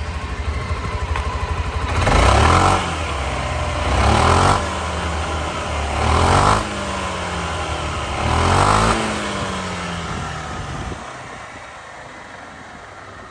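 A Suzuki Skywave 250S's single-cylinder, water-cooled four-stroke engine idling and blipped four times about two seconds apart, each rev climbing and dropping back to idle. It gets quieter near the end.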